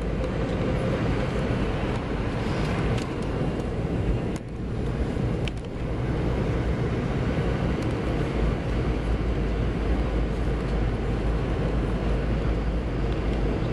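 Steady cabin noise inside a Boeing 717 jetliner in descent: the rush of airflow over the fuselage and the drone of its rear-mounted turbofan engines, briefly dipping in loudness about four and a half seconds in.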